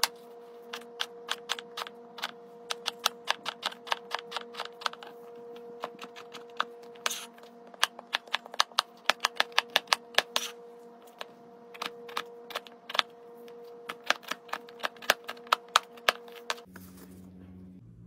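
Knife dicing a raw potato into small cubes on a cutting board: quick, sharp taps of the blade on the board, several a second, in runs with short pauses. The taps stop about a second and a half before the end.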